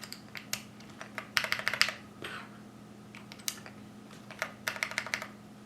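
Typing on the AKKO 3108 V2 OSA mechanical keyboard, fitted with Gateron Yellow linear switches: scattered clacking keystrokes, with two quick runs of keys about a second in and near the end, over a faint steady hum.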